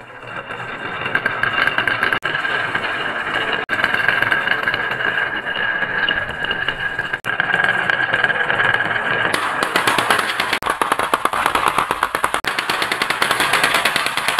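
Many marbles rolling together down a wooden zigzag slope, a continuous rattling rumble. From about two-thirds through it turns into a dense stream of clicks and clatter as the marbles pour into a plastic toy dump truck's bed.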